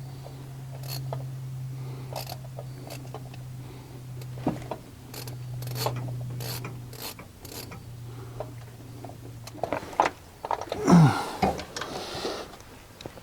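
Hand ratchet clicking in short, irregular runs as a tight spark plug is worked out of the engine head. A steady low hum sits under it and stops about ten seconds in, and a louder breathy sound comes near the end.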